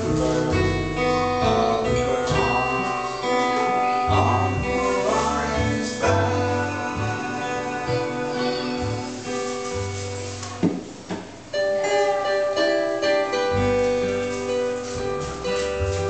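Live acoustic string band playing: two acoustic guitars strummed and picked over a plucked upright double bass.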